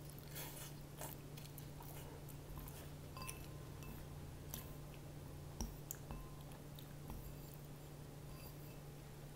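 A person eating instant noodles with wooden chopsticks: a slurp at the start, then chewing and a few light clicks of the chopsticks against the bowl, over a low steady hum.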